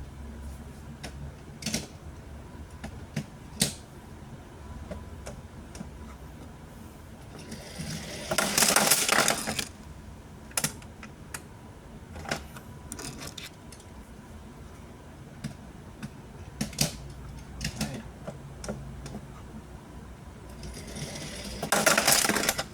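Sharp plastic clicks and taps from handling Hot Wheels die-cast cars and track pieces, with two rattling runs of about two seconds each, about eight seconds in and near the end, as a die-cast car rolls fast along the plastic track.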